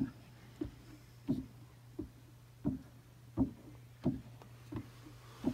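Soft wooden-sounding knocks repeating evenly, about one every 0.7 s.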